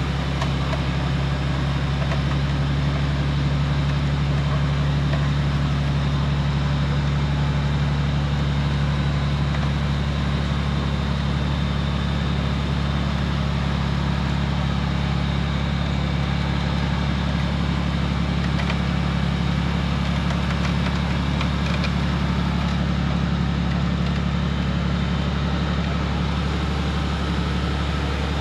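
Off-road vehicle engine idling steadily: a low, even hum with no revving.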